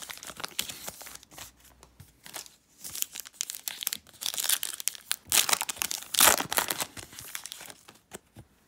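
Foil wrapper of a Panini Contenders football card pack crinkling and tearing as it is torn open by hand, in irregular crackles that are loudest about halfway through.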